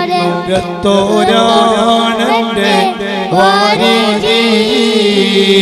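A boy singing a Malayalam madh song in praise of the Prophet into a microphone, a sung verse line with sliding, ornamented pitch over a steady held note underneath.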